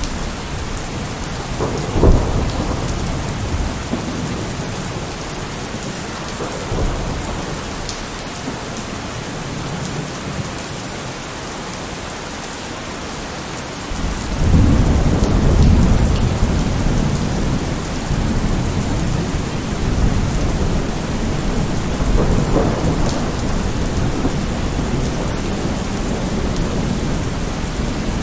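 Thunderstorm: steady heavy rain with thunder, a sharp crack about two seconds in and a long deep rumble rolling in about halfway through and fading slowly.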